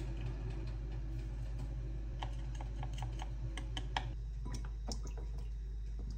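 Wooden spoon clicking against a small glass bowl while stirring a soy and oyster sauce dressing, several light clicks a second that start about two seconds in and stop near the end, over a steady low hum.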